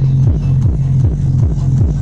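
Electronic dance music played through a DJ controller: a fast, steady kick drum over a pulsing bassline.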